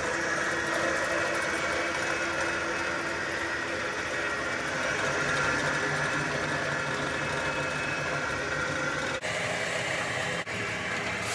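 Heavytech 6N40 DSV mini rice mill with de-stoner and vibrator, driven by a 3 hp electric motor through belts and pulleys, running steadily as a mix of motor hum, belt and roller noise, and vibrating-screen rattle. The sound briefly drops out twice near the end.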